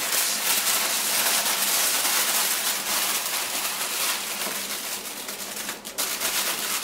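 Aluminium foil crinkling and rustling steadily as a burrito is rolled up tightly in it by hand, with a brief pause a little before the end.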